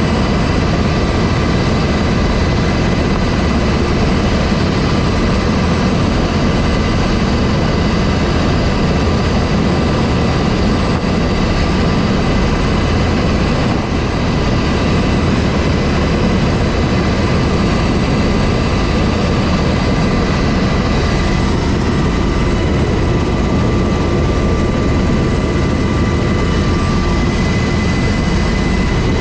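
UH-60 Black Hawk helicopter's twin turboshaft engines and rotor running steadily on the ground, heard from inside the open cabin. A high turbine whine sits over a heavy low rumble.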